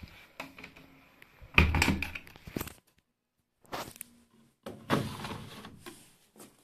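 Siemens WM14N2L3 front-loading washing machine being handled: a cluster of knocks, the loudest sound, about one and a half seconds in, likely the loading door being pushed shut. Near the end, a click and then a plastic scraping slide as the detergent drawer is pulled open.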